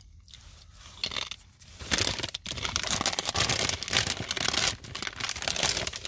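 Thick cassava chip being bitten and chewed close to the microphone: a first crunch about a second in, then steady crunching from about two seconds on.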